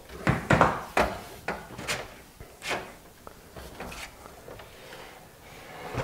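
Light knocks and clunks of handling: a cordless screwdriver set down on a wooden table and the steel PC case touched, about a dozen short knocks over the first four seconds, fainter after that.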